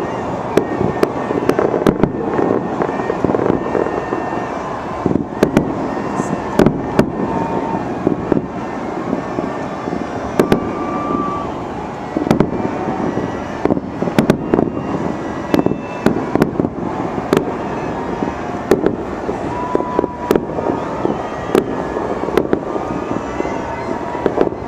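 New Year's fireworks display: a continuous crackling, rumbling noise punctuated by frequent sharp bangs at irregular intervals, sometimes several in a second.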